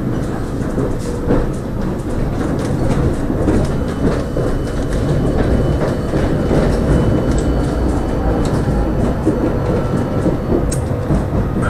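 Tram running along its track, heard from inside the passenger cabin: a steady rumble of wheels on rail with a few short clicks.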